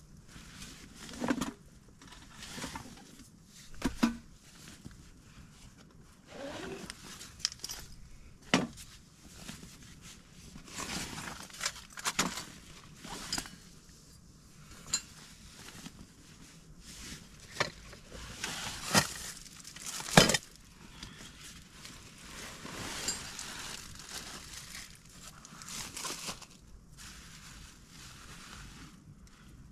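Objects being handled: irregular sharp knocks and clinks with rustling between them, the two loudest knocks coming close together about two-thirds of the way through.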